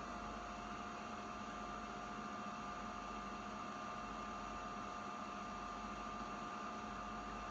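Bistro microwave oven running from a portable power station: a steady hum and fan noise with two steady high tones over it. It is drawing its rated 1400 W and keeps running normally.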